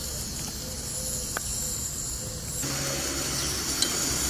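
Egg-and-herb batter for kuku sabzi sizzling in hot oil in a frying pan: a steady hiss that turns louder and fuller a little over halfway through, with a light clink near the end.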